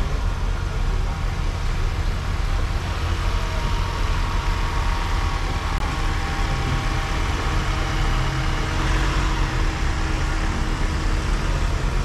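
Tourist road train running as it rolls slowly along the street: a steady low rumble from its motor and wheels.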